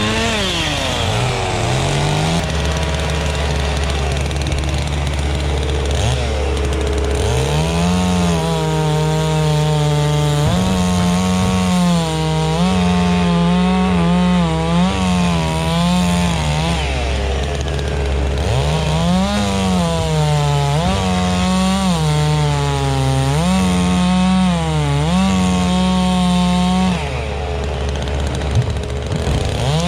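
Holzfforma two-stroke chainsaw running at high revs while cutting through a log, its engine pitch dropping and climbing again and again as the chain loads up in the wood and frees.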